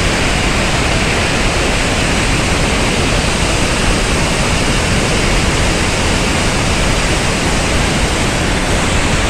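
Water released from a dam outlet gushing white down a concrete spillway channel: a loud, steady rush with no breaks.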